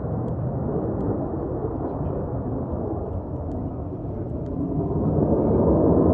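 Jet roar of an F-35A Lightning's single afterburning turbofan, a deep, noisy rumble. It eases slightly midway and swells again near the end.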